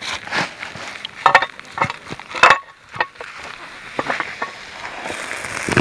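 Double pudgy pie iron being closed and handled: a series of short metal clicks and knocks.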